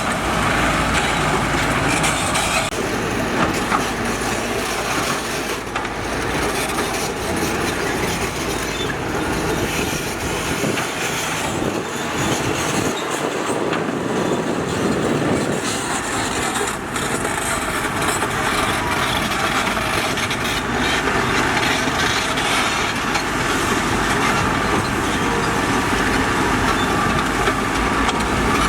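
Heavy construction machinery running continuously: steady diesel engine noise with rattling, clanking clatter typical of tracked earthmoving equipment.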